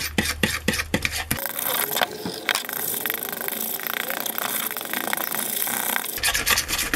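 A spoon stirring and scraping a thick, lumpy egg-and-whey-gel boilie paste around a plastic mixing bowl. A quick run of scraping strokes comes in the first second or so, then steadier mixing.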